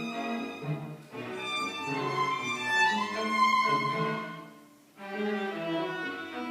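String quartet of two violins, viola and cello playing sustained bowed notes; the phrase fades away about four and a half seconds in and a new one starts about half a second later.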